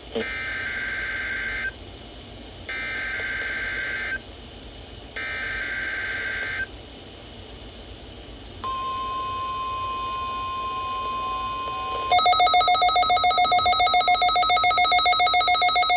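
NOAA Weather Radio EAS SAME header: three screeching digital data bursts of about a second and a half each, with short pauses between them. Then the steady 1050 Hz weather radio alert tone sounds for about three and a half seconds. Near the end a louder, rapidly pulsing alarm tone takes over.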